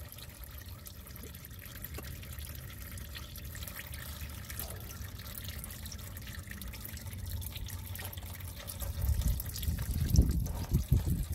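Used engine oil, mixed with engine flush, trickling in several thin streams from a car's oil pan drain hole as it drains. Wind buffets the microphone with low rumbling gusts that grow louder near the end.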